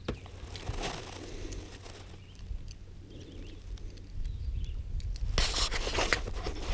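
Wind rumbling on the microphone, with small clicks and scrapes from fingers working fishing tackle right next to it. The handling gets louder and busier about five seconds in.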